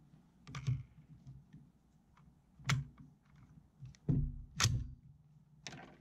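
About five light, sharp clicks and knocks from hands handling a marker and the rifle rest on a hard plastic case.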